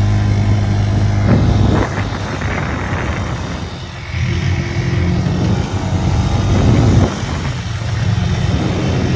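ATV engine running, its note easing off about two seconds in and building up again toward the end.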